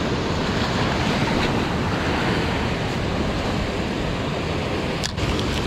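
Ocean surf washing on the shore, with wind buffeting the microphone as a steady noise.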